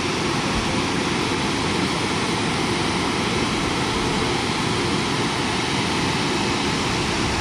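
Steady, loud rush of water pouring over a concrete dam spillway into the river below.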